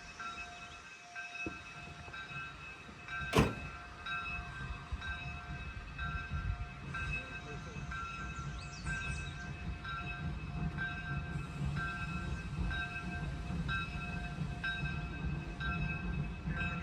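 Locomotive bell ringing in steady strokes, just under one a second. There is a single sharp crack about three seconds in, then the low rumble of the moving train builds and keeps rising.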